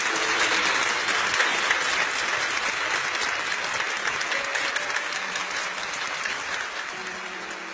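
A church congregation applauding, the clapping slowly dying down toward the end.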